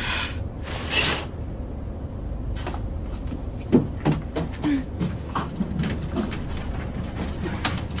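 Steady low airliner cabin hum, with two swishing rustles near the start and scattered light clicks and knocks after.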